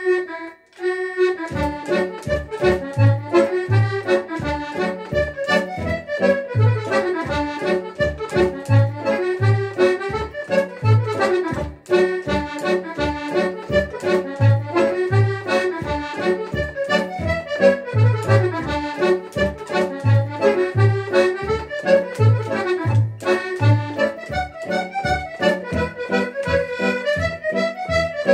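Red Paolo Soprani button accordion playing a hornpipe: a short held note, then a busy melody from about a second in over a steady beat of left-hand bass notes and chords.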